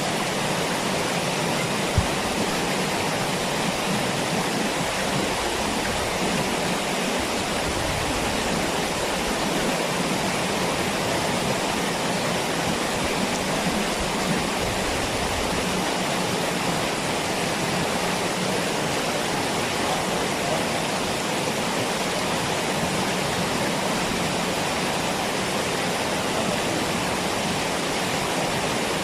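Waterfall rushing: a steady, unbroken roar of falling water, with a single sharp click about two seconds in.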